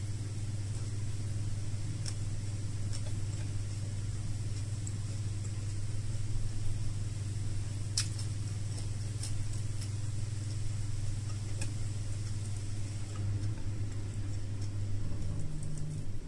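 A steady low hum throughout, with a few faint clicks and smacks from eating by hand and chewing.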